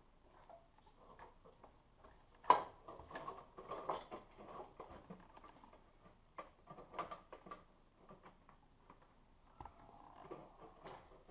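Light clinks, taps and scrapes of an intake manifold being handled and seated on an engine, with one sharper knock about two and a half seconds in and a short run of clicks around seven seconds.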